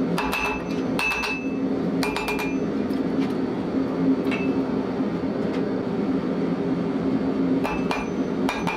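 Ball-peen hammer striking red-hot steel on an anvil: quick groups of blows in the first two seconds, a single blow about four seconds in, a pause, then more blows near the end, some leaving a high ringing ping. A steady low hum runs underneath.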